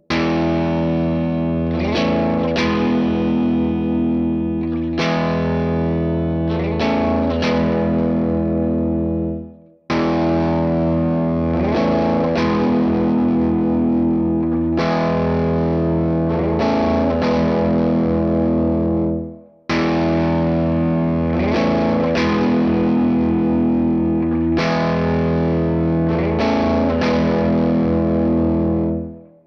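Electric guitar played through Stambecco's effect presets with a distorted tone. The same chordal phrase of about ten seconds is heard three times, each take ending abruptly.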